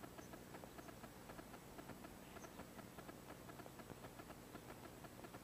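Near silence: faint room tone with a steady scatter of soft ticks.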